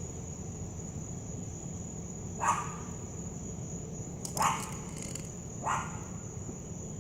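A dog barks three times, short single barks spaced a second or two apart, over a steady high chirring of insects.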